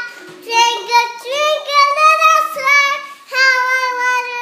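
A young girl singing alone in long held notes that step up and down in pitch, with a brief pause for breath about three seconds in.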